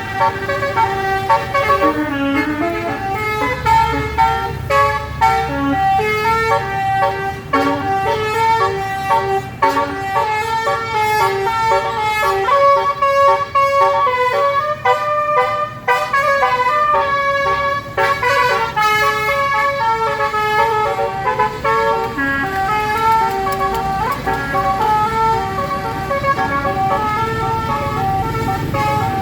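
A bus's telolet basuri musical air horn playing a melody, its chords of horn notes stepping from pitch to pitch without a break, over a low engine rumble.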